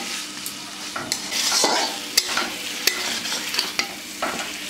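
Fried potatoes being stirred in a pan of sizzling oil and spice paste, the spatula scraping through with repeated strokes, and a couple of sharp knocks against the pan about two and three seconds in.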